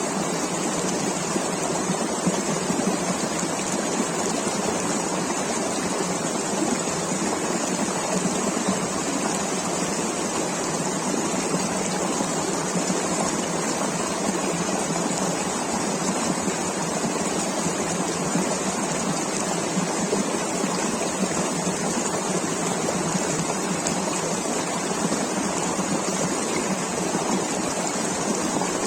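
River water rushing in a steady, even flow, with no breaks or distinct splashes.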